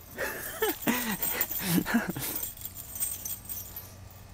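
A West Highland White Terrier giving several short whining cries that rise and fall in pitch, for about two seconds, then stopping.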